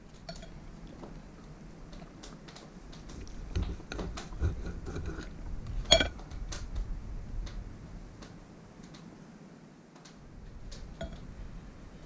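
Knife and fork clinking and scraping on a dinner plate while cutting and eating steak, with scattered soft knocks. The sharpest clink, ringing briefly, comes about six seconds in.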